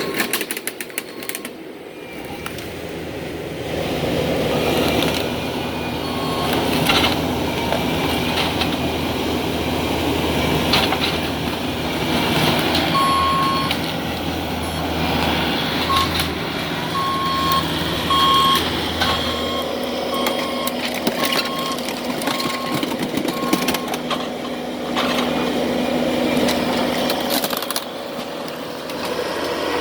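Heavy demolition machinery running steadily, with a reversing alarm beeping in a string of short beeps through the middle stretch and scattered knocks and crashes of debris.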